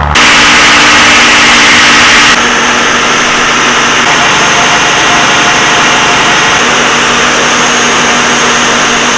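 The boat's engine running steadily under load at about 1500 RPM in gear while tied up, heard close to the turning propeller shaft, with a few constant tones. A loud rushing noise fills the first two seconds or so.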